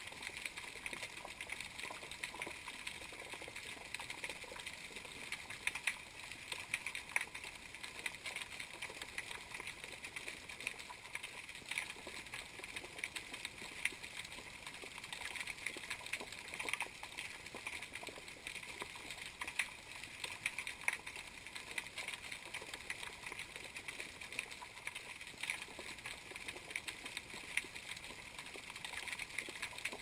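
Underwater ambience picked up by a camera resting on the seabed: a steady crackle of many small clicks, with a faint steady tone underneath.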